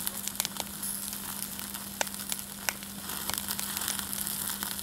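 Lamb chops sizzling on a grill over charcoal briquettes, a steady hiss with scattered sharp pops and crackles.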